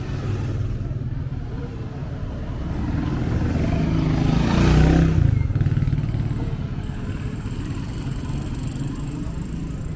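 A motor vehicle passes close by on the street: its engine grows louder to a peak about halfway through, with a rush of road noise at its closest, then fades away.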